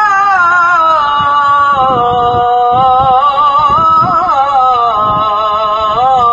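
A male muezzin's voice sustaining the long melismatic note that closes 'Ashhadu anna Muhammadan rasulullah' in the Islamic call to prayer (adhan). The pitch winds up and down in ornamented turns without a break.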